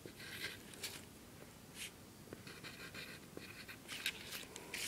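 Faint scratching of a pen on paper, written in a series of short strokes.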